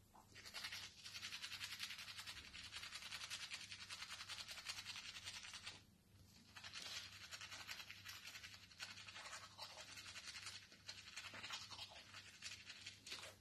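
Toothbrush scrubbing teeth in quick back-and-forth strokes, stopping briefly about six seconds in and then starting again.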